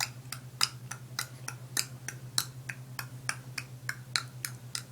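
A man clicking his tongue as a silly noise for a baby: a steady run of sharp clicks, about three a second, the pitch shifting slightly from click to click.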